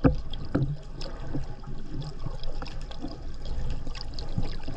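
Seawater sloshing and gurgling around a camera just under the sea surface, with many small irregular clicks and knocks over a low rumble.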